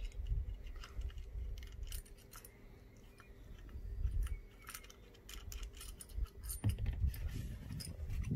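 Light metallic clinks and rattles as the big-end cap and its bolts are worked off a VW 1.2 BMD engine's connecting rod by hand, over low handling thumps.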